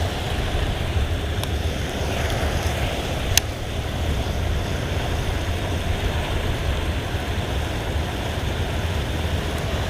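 Steady rush of river water pouring over a concrete waterfall, running high after rain, with wind buffeting the microphone as a low rumble. A single short click about a third of the way in.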